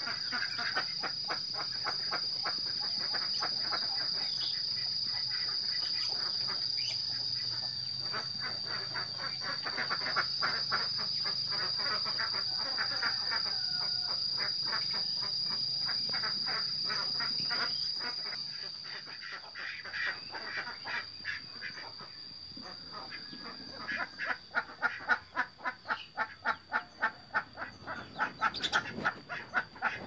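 Domestic ducks calling in their pen, with a steady high-pitched insect drone underneath. Near the end the duck calls come as a regular run of quacks, about two a second.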